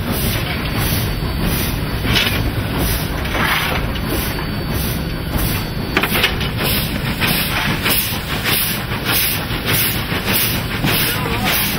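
Cab noise of NSW 32 class steam locomotive 3265 running at speed: a steady rumble and rattle, with steam hissing that swells a few times.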